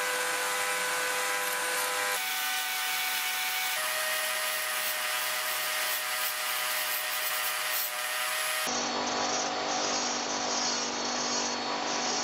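A handheld high-speed rotary tool with a small abrasive cut-off disc grinding teeth into a steel blade: a steady motor whine with a gritty grinding hiss. The pitch of the whine shifts abruptly a few times.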